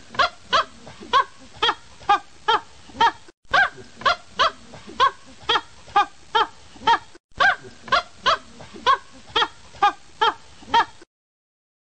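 An animal's call repeated about twice a second, each call short and falling in pitch. The calls break off briefly every four seconds or so and stop abruptly about eleven seconds in.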